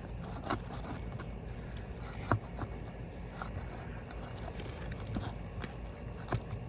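A few sharp clicks and knocks of a hand tool prying a roofing nail out from under a shingle, over a steady low rumble. The two loudest clicks come about two seconds in and near the end.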